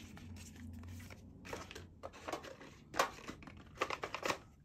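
Yu-Gi-Oh trading cards and foil booster-pack wrappers being handled: a string of short rustles and scrapes.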